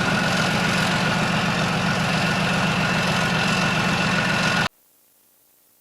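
A heavy vehicle engine idling steadily, then cutting off abruptly near the end, leaving near silence.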